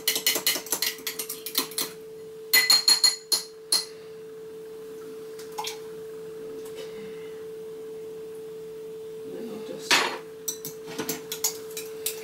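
A fork beating an egg in a glass, rapid clinking against the glass, then a few louder ringing clinks. After a quieter stretch, a fork stirs briskly in a glass measuring jug near the end, clinking again. A steady hum runs underneath throughout.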